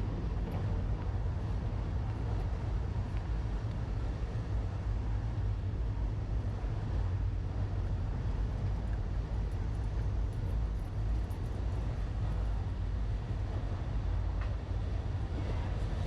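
Steady low rumble of city street ambience, with no clear single event standing out.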